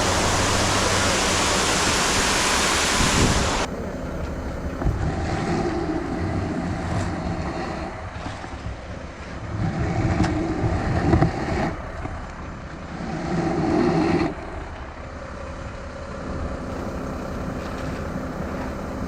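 Wind buffeting the microphone with a loud rushing noise, cutting off suddenly a few seconds in. After that an engine runs steadily, swelling louder three times.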